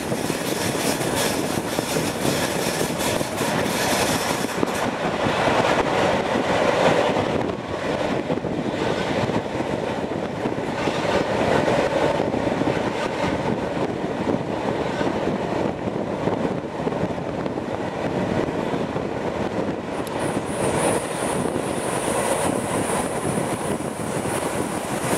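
Diesel-hauled passenger train running along the line, heard from an open coach window: a steady rush of wheels on the track and wind. A high-pitched note joins about twenty seconds in.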